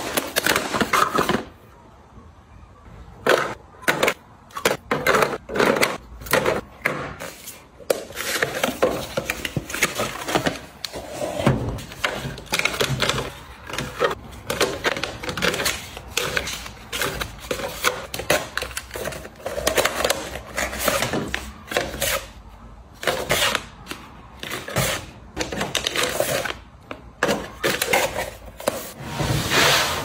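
Hands handling packaging: a cardboard box torn open, then plastic-wrapped snack sachets and pods crinkling and knocking into clear plastic organizer bins. The sound comes as an irregular string of crinkles, taps and clicks.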